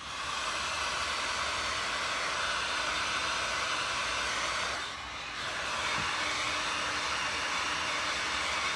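Handheld hot air blower (heat gun) running with a steady blowing noise as it shrinks heat-shrink tubing over soldered wire joints. The noise dips briefly about five seconds in, then carries on.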